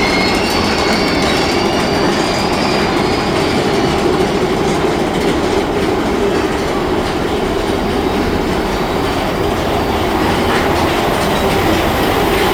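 Big Thunder Mountain Railroad mine-train roller coaster running on its track, heard from on board: a loud, steady rattling clatter of the cars. A high wheel squeal fades out over the first few seconds.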